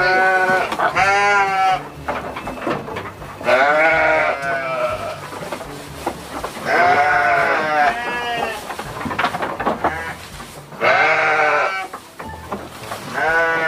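Sheep bleating over and over at feeding time: long, quavering bleats, a new one every two to three seconds.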